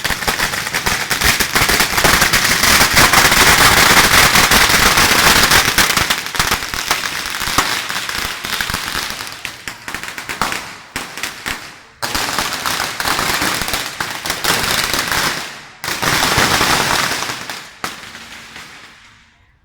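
A long string of firecrackers going off in a rapid, continuous crackle of bangs, which breaks off briefly twice in its second half and dies away near the end.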